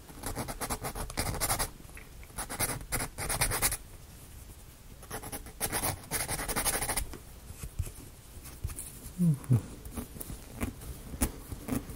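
Thin laser-cut plywood model parts being handled, with scraping and rubbing of wood and scattered light clicks. The sound comes in several bursts of a second or two, with quieter gaps between them.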